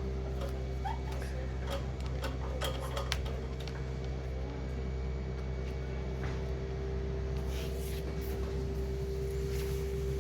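A steady low mechanical hum with scattered light clicks and rubbing from small metal parts being handled.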